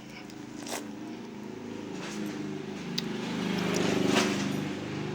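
Cats growling and yowling at each other during a fight: a low, wavering, drawn-out moaning growl that grows louder to a peak about four seconds in, then eases slightly.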